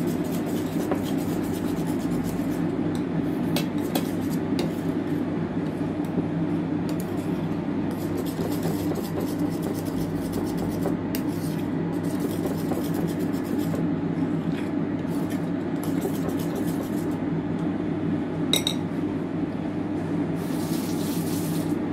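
A utensil scraping, rubbing and clinking against a mixing bowl as banana walnut cake batter is stirred by hand, over a steady low hum.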